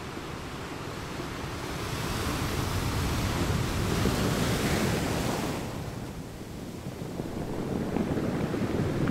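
Sea surf washing onto a sandy beach, with wind buffeting the microphone. A wave's hiss swells over the first few seconds and fades about six seconds in, then a lower rumble builds again near the end.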